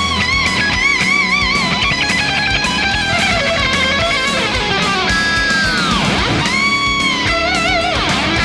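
Electric guitar playing a lead solo: runs of quick notes and held notes with wide vibrato, with one held note dipping deep in pitch and swooping back up about five to six and a half seconds in.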